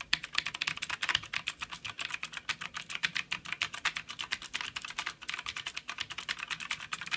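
Fast continuous typing on a Tt eSPORTS Poseidon Z mechanical keyboard with blue switches: a rapid run of sharp clicks from the keystrokes.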